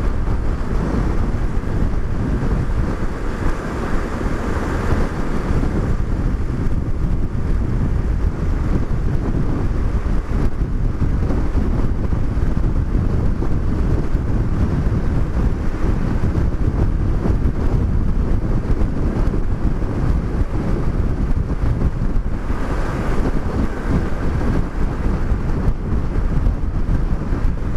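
Wind buffeting the microphone on a moving motorcycle: a steady, loud low rumble, with the motorcycle's engine and road noise underneath.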